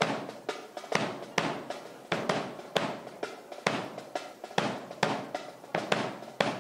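Sharp strikes in marching time from a drill formation, about two to three a second, unevenly spaced and varying in strength, each ringing out briefly.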